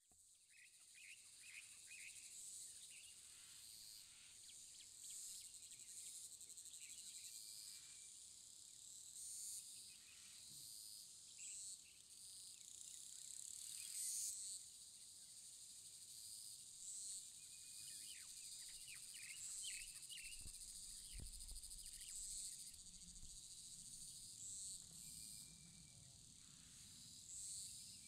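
Faint chorus of cicadas buzzing high and steady, swelling and fading every second or two, with scattered short bird chirps. A faint low rumble comes in about two-thirds of the way through.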